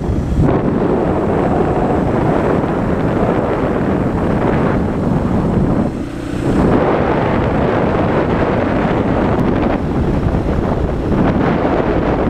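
Loud wind rush buffeting the microphone of a Yamaha Serow 225 dirt bike on the move, with the bike's running under it; the rush eases briefly about six seconds in.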